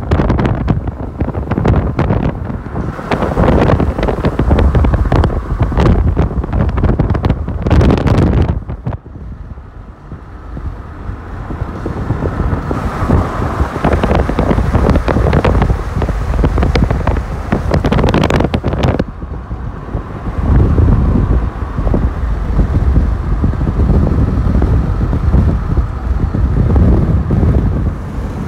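Wind buffeting the microphone over the low rumble of a moving car, in uneven gusts, easing for a few seconds about nine seconds in.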